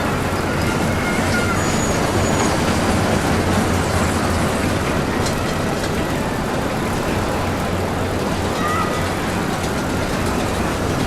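Roller coaster train running on its track: a steady rumble and rush of noise, with brief faint high tones now and then.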